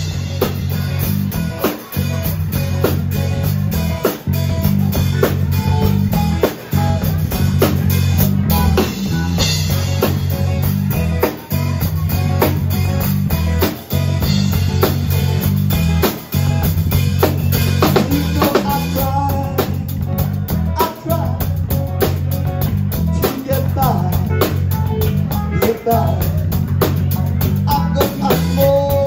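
Live band playing loudly: a drum kit keeps a steady beat over a five-string electric bass, with short breaks in the groove every few seconds.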